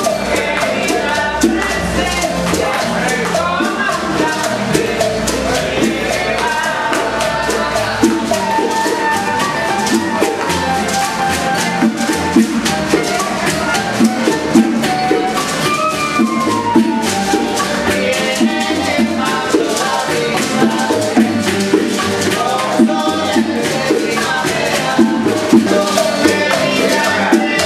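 Small Cuban band playing live: acoustic guitars, flute, upright bass and maracas, with men singing over a steady shaker rhythm.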